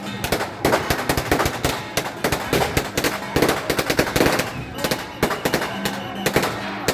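Strings of firecrackers going off in a continuous rapid crackle of dense, irregular bangs.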